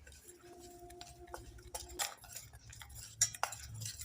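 A utensil stirring dry cocoa powder, cornflour and powdered sugar in a saucepan, making faint, irregular light clicks and taps against the pan.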